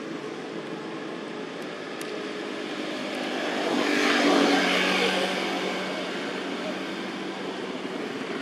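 An engine passing by, building to its loudest about four seconds in and then fading away.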